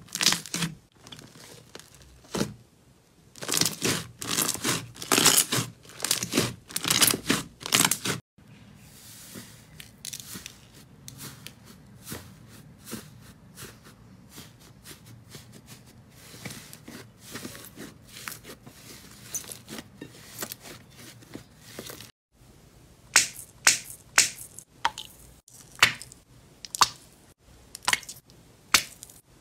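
Slime worked by hand in three short clips: loud rapid crackling in strokes as a glossy orange slime is pressed down, a long quieter stretch of faint crackles as a thick purple slime is pushed and pinched, then sharp separate clicks and pops as a small gel-filled bag is squeezed in the hand.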